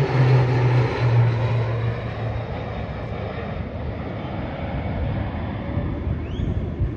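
Airplane engine passing by, its tone dropping slightly in pitch and fading away over the first couple of seconds, leaving a fainter steady rumble.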